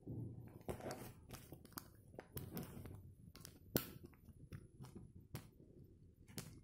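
Close handling of a handbag: rustling of its material and a string of small clicks and taps from fingers on its metal turn-lock clasp and studs, one sharper click a little before the middle.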